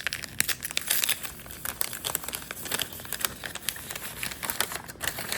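Packing wrap crinkling and rustling in a dense run of irregular crackles as crystals are unwrapped by hand.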